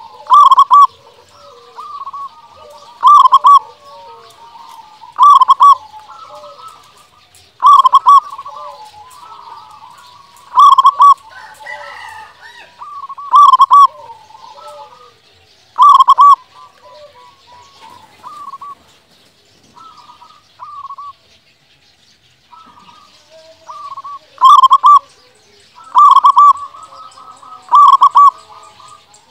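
Zebra dove (perkutut) song: loud coo phrases repeated about every two to three seconds, with softer notes between them. The loud phrases stop for several seconds in the middle, then resume.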